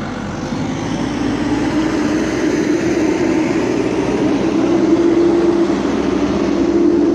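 Backhoe loader's diesel engine running with a steady drone that gets louder over the first few seconds.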